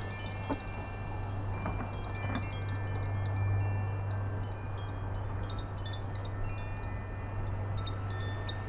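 Wind chimes ringing, several high, clear tones struck at scattered moments and overlapping as they fade, over a steady low hum.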